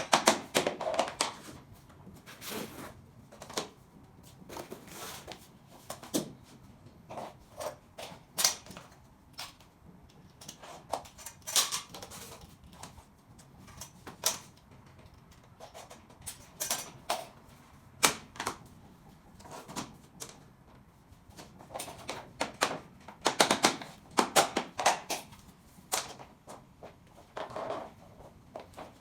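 SPC stone-plastic click-lock floor planks being fitted and tapped into place: irregular sharp taps and knocks in bursts, busiest at the start and again about two-thirds of the way in.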